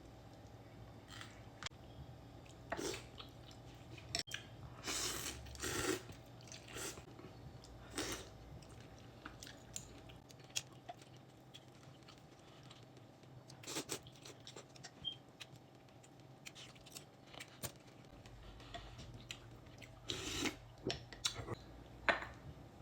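A person eating pho close to the microphone: chewing, with scattered short, louder eating noises every few seconds.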